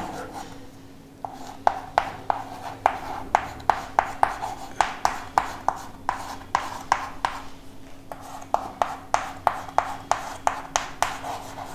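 Chalk tapping and scraping on a chalkboard as words are written out: a run of sharp chalk strokes, a few a second, starting about a second in, over a faint steady hum.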